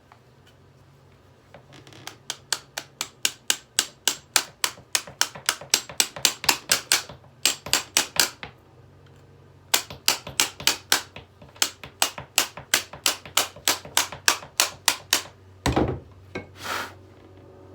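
A hammer striking a hairdryer in fast repeated blows, about five a second, in two long runs with a short pause about eight seconds in. A heavier thump follows near the end, and a faint low hum runs underneath.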